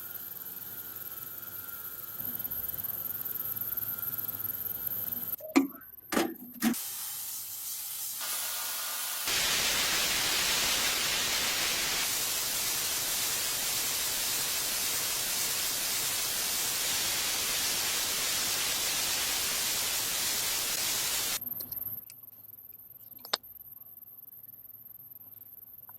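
A steady, even hiss of spraying that starts abruptly about nine seconds in and stops about twelve seconds later. A few brief knocks come before it.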